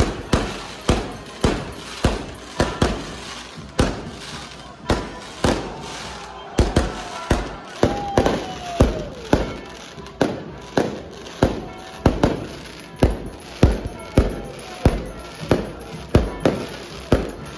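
Fireworks going off in a steady, rapid series of sharp bangs, about two a second.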